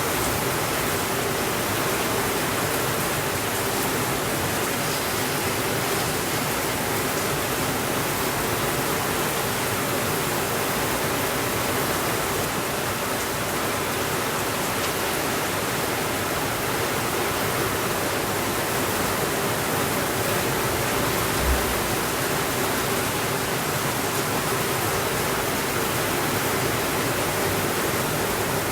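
Steady, continuous rainfall with no thunder, and a single brief low thump about three-quarters of the way through.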